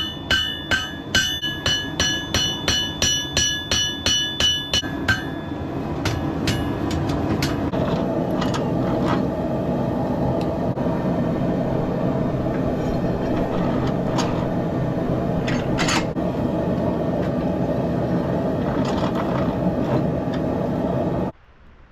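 Hammer striking a hot steel knife blank on an anvil, ringing blows about two to three a second for the first five seconds, as the blade is straightened and its bevels forged in. Then a steady rushing noise with a few light taps, cut off abruptly near the end.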